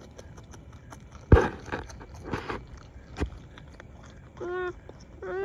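Beaver kits crunching and chewing pieces of sweet potato, with the sharpest crunch about a second in. Near the end a kit gives two short whining cries.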